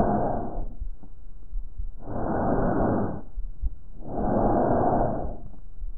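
Bronchial breath sounds heard through a stethoscope: breaths of rushing airflow noise, each lasting over a second, coming about every two seconds with a fainter hiss between them. This is the breathing heard over the larynx and trachea, not over healthy lungs.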